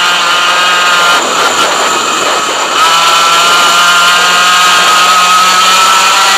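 100cc two-stroke kart engine running hard at high revs: its pitch wavers and drops about a second in, then climbs again near three seconds and holds a high, steady whine.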